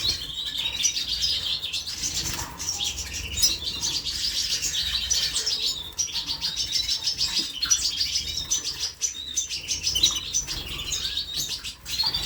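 Domestic canaries singing and chirping continuously, a busy stream of rapid trills and high twittering notes.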